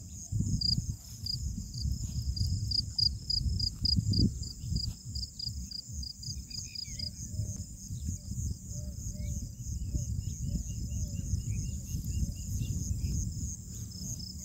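Insects singing in a steady, high-pitched chorus at dawn, with a fast pulsing chirp for the first few seconds. Around the middle, an animal gives a run of short calls, about three a second. Under it all, a low fluctuating rumble of wind on the microphone.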